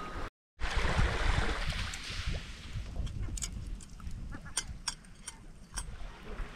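Campfire embers crackling, with scattered sharp pops and snaps after a hiss in the first couple of seconds, over a low rumble of wind on the microphone.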